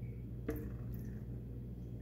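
Small birds feeding on a window ledge: a sharp tap about half a second in and a lighter tick near one second, with faint short chirps, over a steady low hum.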